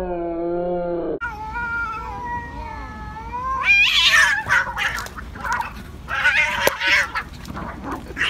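Two cats fighting, one black and one grey tabby: long wavering yowls, then about four seconds in a loud burst of harsh screeching and hissing, with more screeching outbursts after it.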